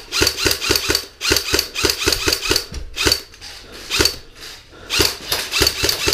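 Airsoft gun firing a rapid string of shots, each a sharp mechanical clack, about four to five a second, with short pauses about one, three and four and a half seconds in.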